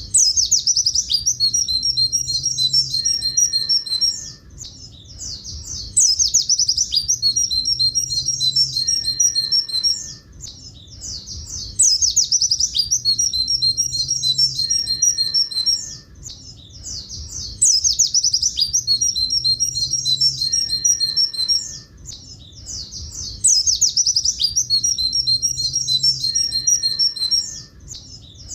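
White-eye (pleci buxtoni) singing a long 'tulit tulit' phrase of fast, high trilled notes, the 'klakson' song type. The same phrase of about four seconds repeats about every six seconds, five times over, as a looped song-tutor recording.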